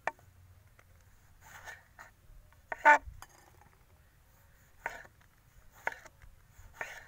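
A kitchen knife slicing a tomato on a wooden cutting board: about six separate cuts, roughly a second apart, the blade tapping the board on each one. The loudest comes a little before halfway through.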